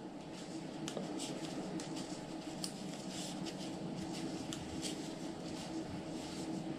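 Metal knitting needles clicking faintly and irregularly against each other as knit stitches are worked in thick yarn, over a steady low background hum.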